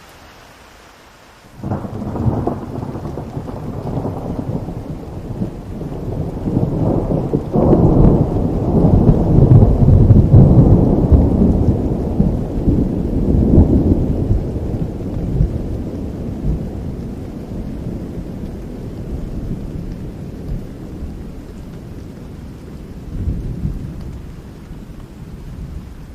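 Rain falling with a long roll of thunder: it breaks in suddenly about two seconds in, swells to its loudest around ten seconds, then slowly rumbles away, with a smaller rumble near the end.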